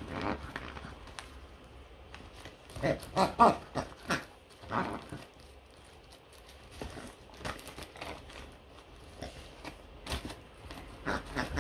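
Hungarian Vizsla tearing open a brown paper-wrapped present with its mouth, the paper crinkling and ripping in irregular bursts, along with the dog's sniffing and mouth noises.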